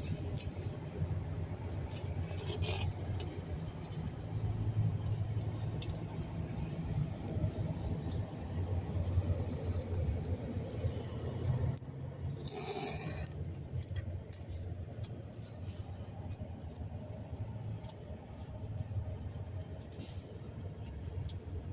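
Car engine running with an uneven low rumble, the coughing its owner is puzzled by; a short hiss about 13 seconds in.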